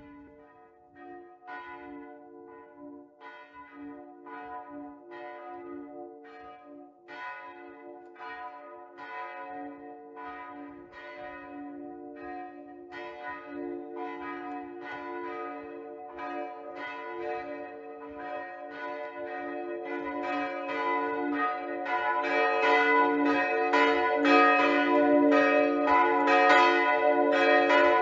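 Church bells ringing, several bells of different pitch struck one after another, each stroke leaving a long hum. The ringing grows steadily louder throughout.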